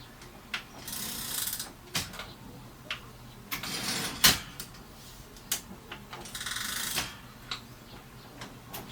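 Mechanism of a 1950 Mercedes office typewriter being worked by hand: the carriage's margin stops and levers are slid and set. There are three short sliding runs, about 1, 3.5 and 6 seconds in, among a series of sharp metal clicks, the loudest about four seconds in.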